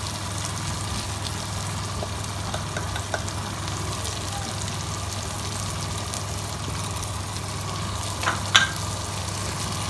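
Chicken, ground tomatoes and spices sizzling steadily in a nonstick wok, over a steady low hum. Two sharp clicks come about eight seconds in.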